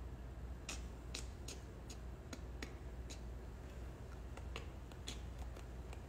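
A dozen or more light, sharp clicks at an uneven pace, starting just under a second in, over a low steady hum.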